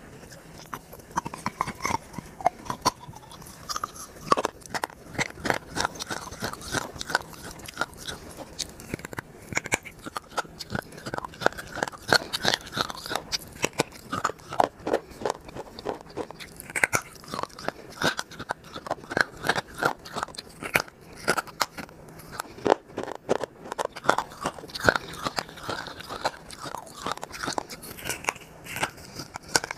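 Someone biting and chewing a hard, crunchy piece of food close to a clip-on microphone: a steady run of sharp, irregular crunches and crackles.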